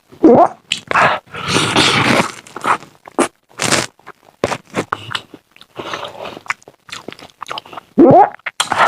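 A person eating noisily close to the microphone: irregular bites, crunching and wet chewing, with a brief pitched gliding sound near the start and again near the end.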